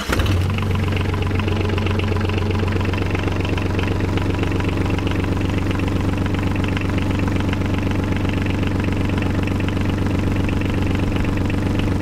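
Yanmar marine inboard diesel engine running at a steady idle. It comes in abruptly at the start.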